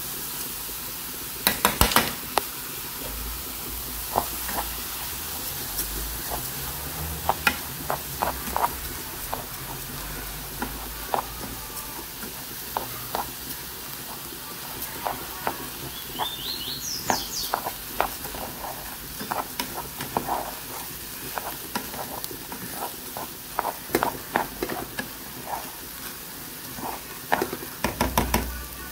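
Raw white rice and grated carrot sizzling as they are sautéed in a metal pot, stirred with a wooden spoon that scrapes and knocks against the pan again and again, with a cluster of loud knocks about two seconds in.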